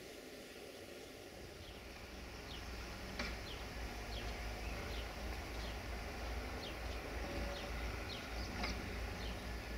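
Low rumble of a Siemens Desiro diesel railcar approaching from far down the line, growing louder from about three seconds in. Over it a bird repeats short, high, falling chirps about twice a second, with a couple of sharp ticks.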